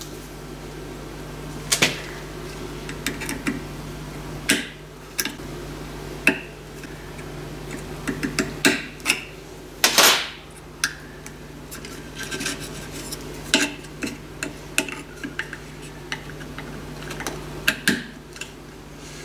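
Scattered light metallic clicks and clinks, one every second or two, as small aluminium rivets and the aluminium part are handled in a steel bench vise, the loudest knock about halfway through. A steady low hum runs underneath.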